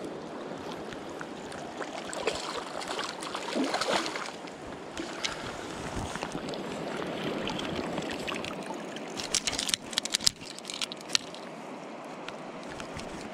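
River water swirling and sloshing around the wader's legs and a landing net as a hooked chub is netted, with a run of sharp splashes and knocks about nine to eleven seconds in.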